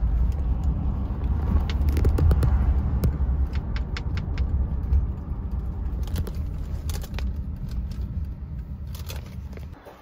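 Low, steady road rumble inside a moving car's cabin, with a scatter of light clicks and rattles in the middle; it cuts off suddenly near the end.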